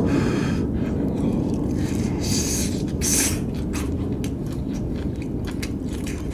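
Close-up chewing of rice bibimbap wrapped in dried seaweed (gim), with small clicks and two brief crunchy bursts about two and a half and three seconds in. A steady low rumble underneath is aircraft noise passing overhead.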